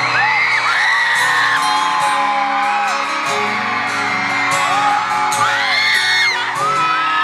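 Live acoustic guitar and male pop vocal over a concert PA, nearly covered by high-pitched screams and whoops from fans close to the microphone.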